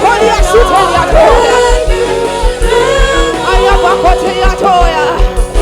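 Gospel worship music: voices singing a wordless, bending melody over a band with a steady kick-drum beat.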